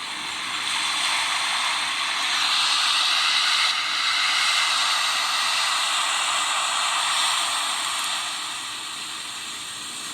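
Steady rushing hiss from night footage of a Krakatoa eruption, swelling over the first couple of seconds and easing off near the end.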